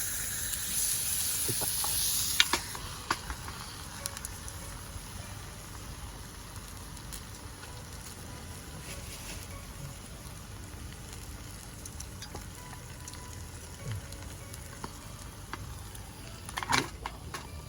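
Food sizzling in a pan over a campfire: a louder hiss for the first couple of seconds, then a steady, quieter sizzle with scattered pops and crackles, and a quick cluster of crackles near the end.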